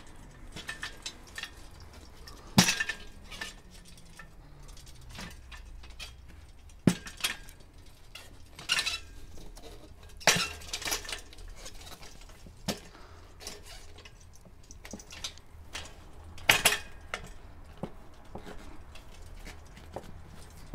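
Parts of a Craftright folding bench being handled and fitted during assembly, clinking and knocking together in irregular clicks, with a few louder knocks.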